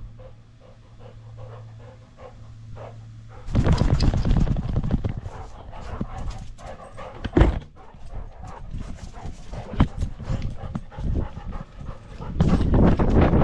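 Labrador retriever panting right at a camera strapped to its body. From about three and a half seconds in it is much louder, with rustling and knocking as the dog moves, and one sharp knock a little past halfway.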